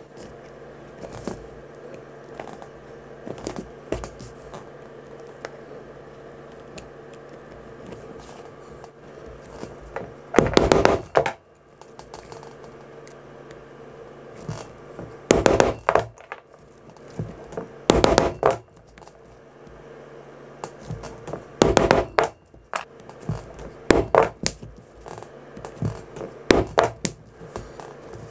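Hand tools working leather at a bench: four short, loud scraping strokes spread through the middle, then a run of quicker scratches, clicks and light knocks near the end, over a steady low hum.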